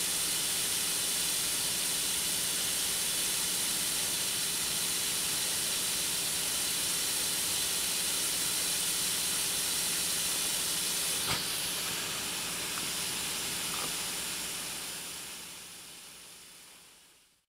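Backyard snow gun's nozzles jetting a pressurised water-and-air spray, a steady hiss with one brief click about eleven seconds in, fading away near the end.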